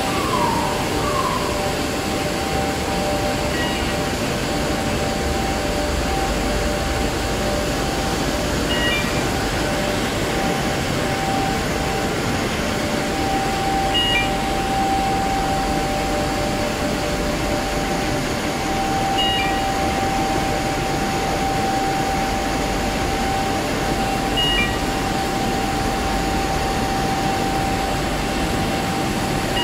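Steady loud running noise of an eight-colour central-impression flexo printing press in production, with a steady hum tone through it. A short high beep repeats about every five seconds.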